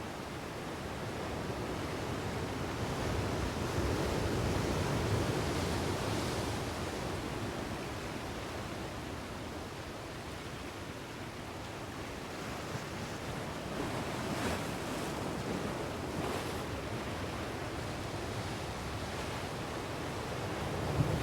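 Waterfall's rushing water: a steady, even roar of falling water that swells slightly now and then.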